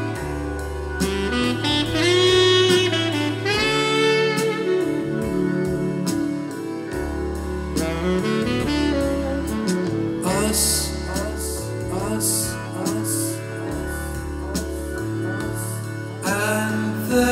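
Recorded music played back through Genelec G2 bi-amped monitors and an F2 subwoofer: a lead melody with gliding notes over a bass line, heard through the speakers in the room.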